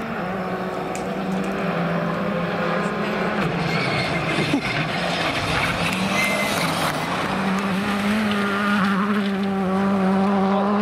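Rally car engines running hard through gravel corners, with loose gravel crunching and spraying under the tyres. The engine note changes pitch a couple of times, about three and a half and seven and a half seconds in.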